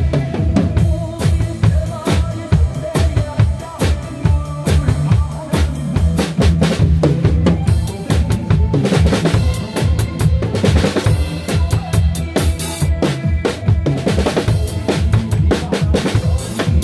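Acoustic drum kit played live in a steady trot beat, with bass drum, snare and cymbal strikes, over a recorded trot song.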